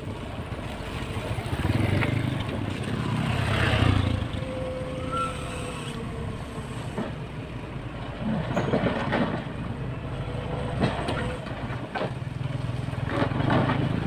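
Motor grader's diesel engine running steadily as it works, with scattered knocks and rattles over the engine sound.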